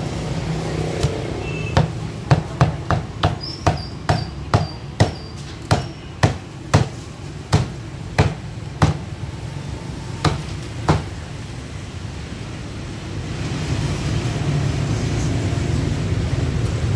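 Heavy meat cleaver chopping through crisp-skinned roast pork onto a thick round wooden chopping block: a quick run of about twenty sharp chops, roughly two a second, that stops about eleven seconds in. A steady low rumble of street traffic runs underneath and grows louder near the end.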